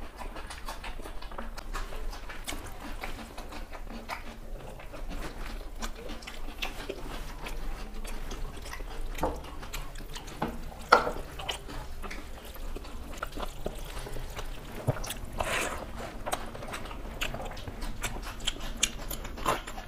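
Close-miked eating by hand: chewing and mouth sounds with fingers mixing rice and curry on plates, many small clicks throughout and one sharp, louder click about eleven seconds in.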